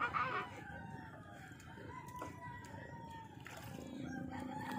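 Faint rooster crowing, long drawn-out calls carrying over the water. A low steady hum comes in near the end.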